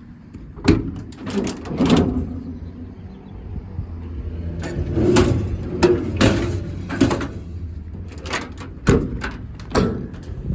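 Metal clanks and latch clicks of a utility truck's service-body compartment doors and drawers being worked: sharp knocks in three clusters over a steady low rumble.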